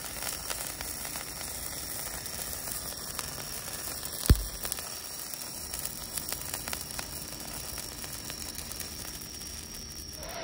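A burning firework sizzling and crackling steadily, with many small sputtering pops and one loud thump about four seconds in.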